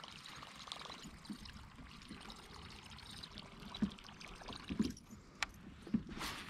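Faint water lapping and trickling against a kayak hull, with a few soft knocks against the boat.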